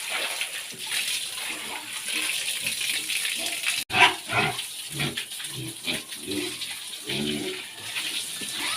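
Pigs grunting in short irregular bursts, with water splashing in the first few seconds.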